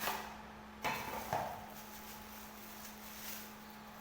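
Box and packaging being opened and handled to unbox an amplifier board kit: three sharp rustles and knocks, one at the start and two close together about a second in.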